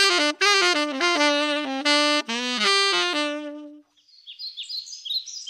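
Solo saxophone playing a short melodic phrase of changing notes, ending on a held note that fades out a little before four seconds in. Faint high chirping follows.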